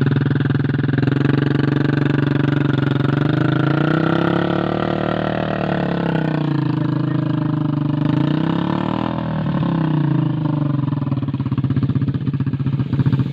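Taksi gabah motorcycle engine running hard. The pitch rises and falls twice in the middle as the throttle is opened and eased.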